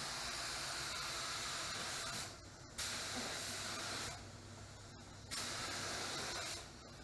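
Compressed-air paint spray gun hissing in three passes of one to two seconds each, the trigger released briefly between passes.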